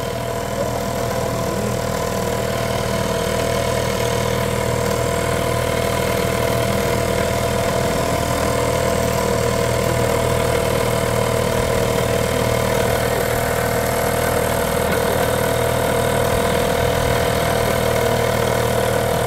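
Small 2 hp Johnson two-stroke outboard motor running steadily at cruising speed, pushing a small boat along the river; its level rises a little in the first couple of seconds and then holds even.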